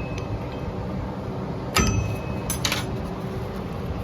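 Sharp metallic clinks with a short ring: one about two seconds in and two more close together just after. They come from a tool working the star-wheel adjuster of the parking brake shoes, backing it off a click.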